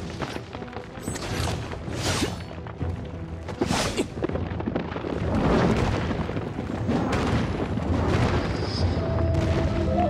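Dramatic battle soundtrack music with heavy booms and whooshing effects laid over it, with sharp swishing surges at about two and four seconds in.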